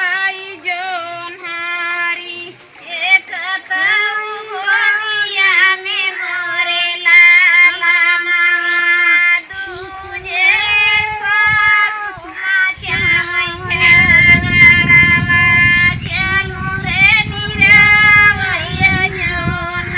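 Women's high voices singing a kajri folk song, held, wavering notes phrase after phrase. About two-thirds of the way in, a low rumble comes in under the singing.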